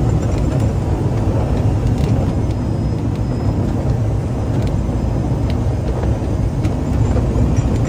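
Steady cockpit noise inside a small business jet on short final: a low rumble of airflow and engines, with a few faint clicks.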